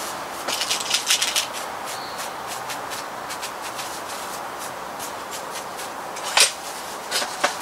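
Crosman Shockwave break-barrel air rifle being handled between shots, cocked and loaded for the next shot: a run of small clicks and rubs, then one sharp loud click about six and a half seconds in and a few more clicks soon after.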